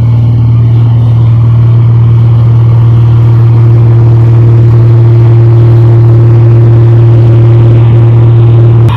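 New Holland Clayson 1545 combine harvester's diesel engine running loud and steady at a constant speed, a deep unchanging drone, cutting off abruptly near the end.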